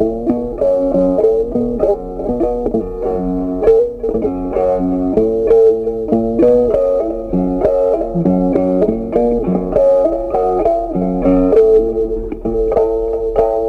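Background music: a plucked guitar melody of quick, steady notes.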